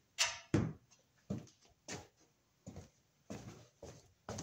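A run of irregular soft knocks and rustles, about two a second, from a person moving about and handling things while working.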